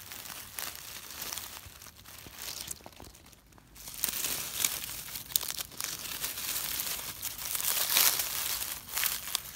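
Dry fallen leaves rustling and crackling as a hand brushes through the leaf litter, with a brief lull about three seconds in and louder rustling after it.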